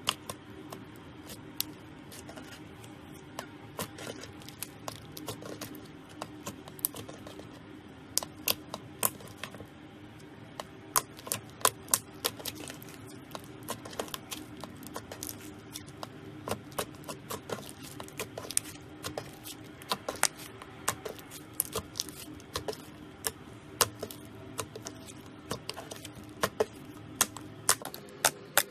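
Slime being poked, squeezed and kneaded by hand, giving a string of sharp, irregular clicks and pops as air pockets in it burst. The clicks come more thickly in the second half.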